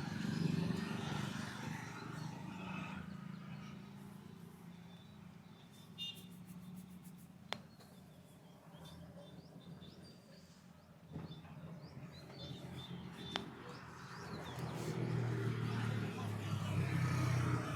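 Birds chirping in short high calls over a low steady rumble that swells near the end, with two sharp clicks in between.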